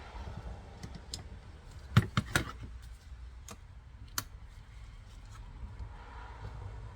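Tools and hydraulic fittings being handled on a workbench while a clutch line is tightened onto the slave cylinder: a quick run of three sharp clicks and knocks about two seconds in, a single click about two seconds later, and fainter ticks in between.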